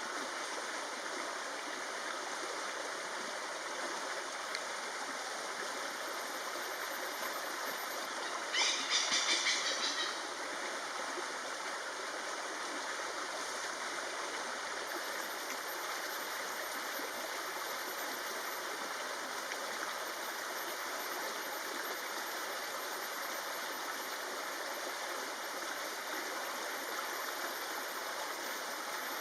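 Steady rushing of a forest stream. A brief call with several stacked pitches rises above it about nine seconds in, lasting about a second and a half.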